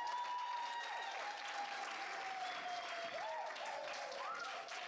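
Audience applauding, with a long high-pitched cheering cry held over the clapping that slowly drops in pitch, then breaks into short rising and falling whoops in the second half.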